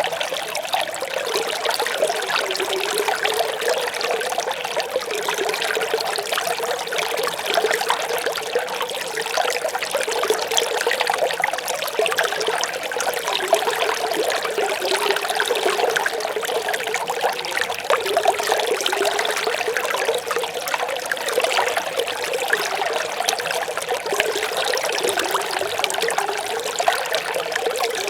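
Running water of a small stream, babbling steadily with continuous trickling and splashing.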